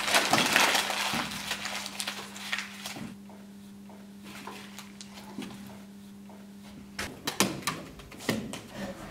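A sheet of paper being crumpled into a ball with a crackling rustle, then a steady low hum of room tone; near the end a few short sharp crackles and ticks of paper.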